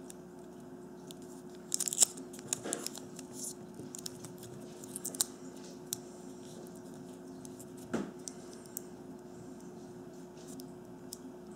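Clear adhesive tape being handled and pressed around the ends of AA NiMH batteries to hold a jumper wire on the terminals: crinkling and sticky crackles with scattered sharp clicks. The loudest cluster comes about two seconds in and a smaller one near eight seconds, over a steady low hum.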